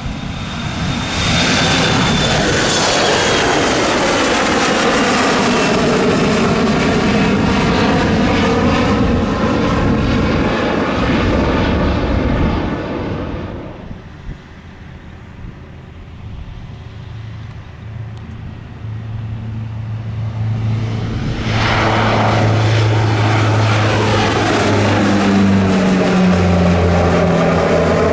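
Embraer 175 regional jet's twin turbofans at takeoff power passing by, a loud roar with a high whine slowly falling in pitch, fading out about halfway. Then a Saab 340B turboprop's propellers set up a low steady drone that swells into a loud takeoff roll.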